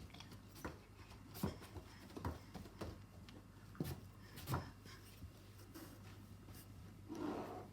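Light knocks and taps on objects such as boxes, about six spread through the first five seconds, with a short soft rustle near the end.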